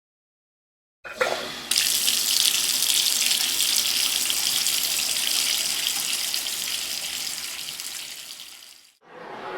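Water running from a tap into a sink: it comes on about a second in, opens up a moment later to a steady full stream, then fades away and stops near the end.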